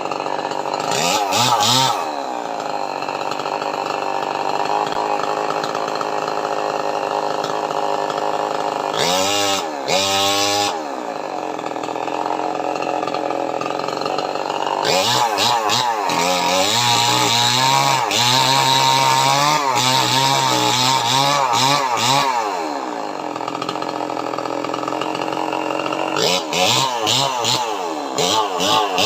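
Two-stroke chainsaw idling, revved up in short bursts three times and held at high revs for about seven seconds in the middle, as when cutting through jackfruit wood.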